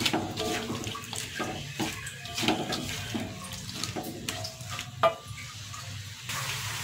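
Silicone spatula stirring and tossing shredded cabbage in a wok, scraping and knocking against the pan, with short squeaks, over a steady hiss of the cabbage frying. A sharper knock comes about five seconds in.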